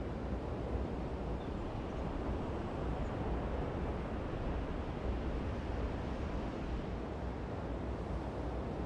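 Steady rushing ambience of ocean surf and wind, with a deep low rumble under it.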